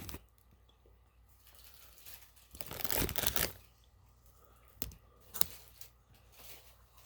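Paper wrapper of a fast-food burger crinkling and rustling as it is handled, with one longer rustle about three seconds in and a couple of sharp taps shortly after.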